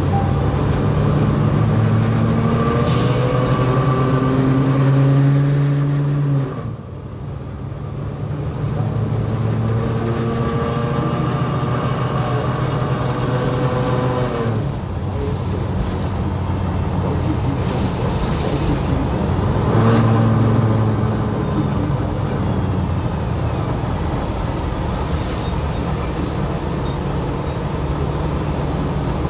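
Drivetrain of a 2020 New Flyer XD60 diesel articulated bus heard from inside, the engine tone climbing in pitch as the bus pulls away, dropping off sharply about six seconds in, then climbing again twice. A short air hiss sounds about three seconds in.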